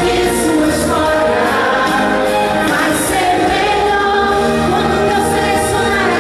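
A woman sings a gospel worship song into a handheld microphone, amplified through a PA system over a musical backing.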